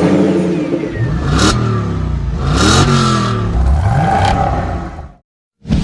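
Car engine revving up and down several times, with whooshing swells laid over it at three points. It cuts off abruptly about five seconds in.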